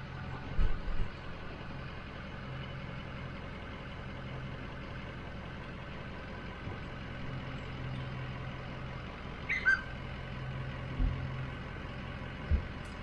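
Bus engine running slowly as the bus reverses, with a few dull thumps and a brief squeak about ten seconds in.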